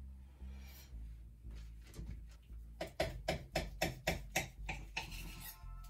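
Background music with a soft, steady beat. About three seconds in comes a quick run of some nine scraping strokes, about five a second: a sharp knife sawing back and forth through a rolled, filled dough log on a board.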